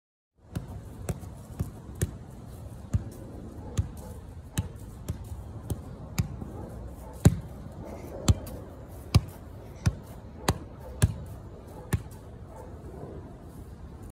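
A soccer ball being juggled: about seventeen thumps as it is kicked up off the feet and legs, one every half second to a second at an uneven pace. They stop about two seconds before the end, and a steady outdoor hiss runs underneath.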